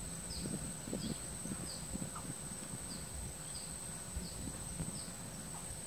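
Insects outdoors: a steady high-pitched whine, with short falling chirps repeating about every two-thirds of a second.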